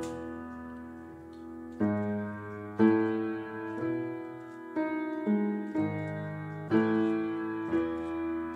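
Background music: slow piano chords, a new chord struck roughly once a second and left to ring.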